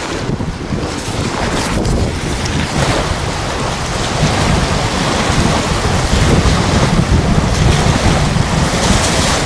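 Strong wind buffeting the microphone in a steady, rumbling rush, mixed with choppy waves washing onto a sandy shore.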